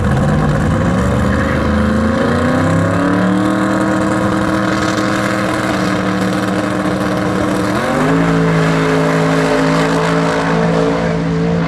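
Drag race car's engine revving on the start line, its pitch climbing over the first few seconds and then holding steady, before stepping up higher about eight seconds in as the car launches down the strip.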